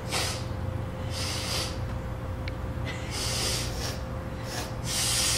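A man breathing hard and loudly, four hissing breaths about every one and a half to two seconds, while his mouth burns from habanero peppers.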